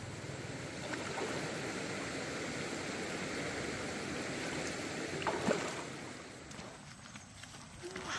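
Shallow stream flowing steadily, a constant rush of water, with a short sharp sound about five and a half seconds in.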